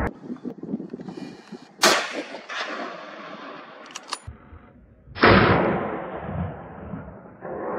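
Two hunting gunshots about three and a half seconds apart, the second the louder, each sharp crack trailing off into a long echo.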